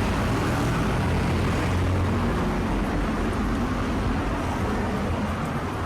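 Steady low rumble of a road vehicle engine and traffic, with no sudden events.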